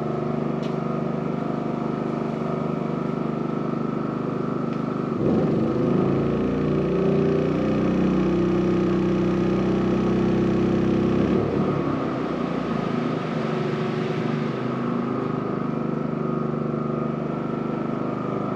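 Portable generator engine running steadily. About five seconds in its note deepens and grows louder for roughly six seconds, then settles back.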